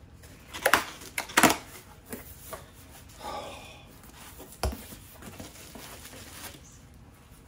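Cardboard and plastic packaging being handled while a book is lifted out of its shipping box: a few sharp taps and clicks in the first second and a half, a short rustle a little past three seconds, and a single knock just before five seconds.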